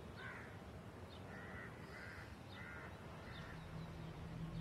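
A crow cawing faintly, about five short caws over three seconds.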